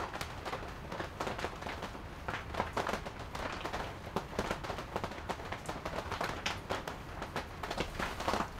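Rain pattering on a canvas wall tent: a dense, irregular tapping with a few louder ticks.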